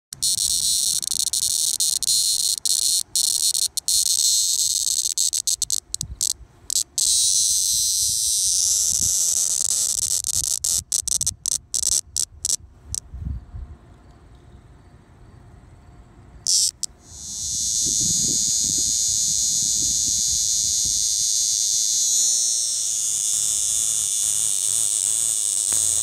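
A hand-held Neotibicen linnei (Linne's cicada) giving its alarm squawk, the harsh distress buzz of a handled cicada. It comes in loud, stuttering bursts, stops for a few seconds, then buzzes continuously through the last third.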